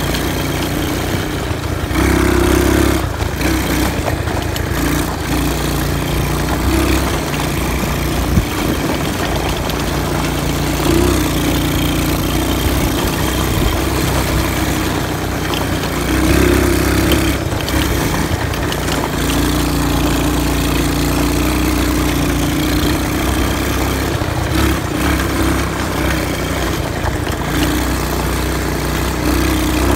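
Four-wheeler (ATV) engine running steadily as it is ridden, its note swelling and easing several times with the throttle.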